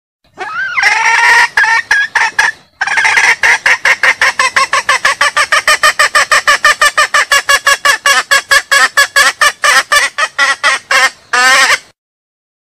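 Junglefowl hen's call, made in heat to summon a cock: a long opening call, then a fast run of short clucking calls at about five a second with a brief break near three seconds in, ending on a longer drawn-out call.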